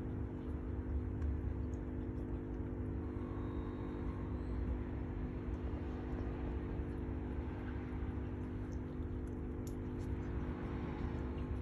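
A steady mechanical hum of several even tones over a low rumble, unchanging throughout, with a few faint ticks near the end.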